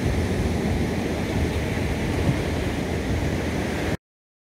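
Surf washing on a sandy beach with wind on the microphone, a steady noise heaviest in the lows; it cuts off abruptly near the end.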